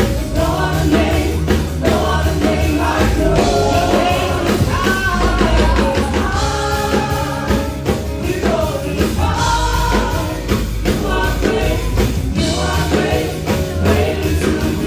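Gospel choir singing a worship song over a full band, with drums keeping a steady beat under a bass line.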